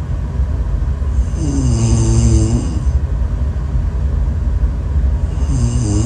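A woman snoring in her sleep: a pitched snore about a second and a half in, lasting over a second, and another starting near the end, about four seconds apart with her breathing, over a steady low rumble.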